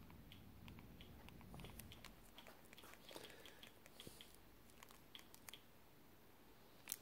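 Near silence: faint room tone with a run of soft, small clicks, several a second, and a sharper click near the end.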